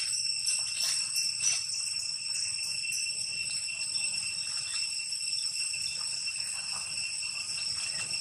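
Steady, high-pitched drone of insects, held at a constant pitch, with a few faint clicks in the first couple of seconds.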